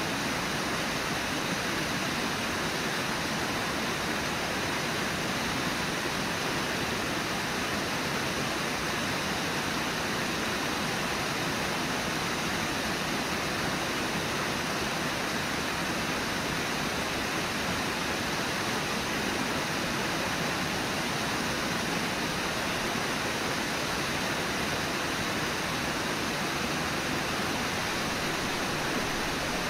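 Waterfall and rapids of Brooks Falls rushing steadily: a continuous even rush of white water.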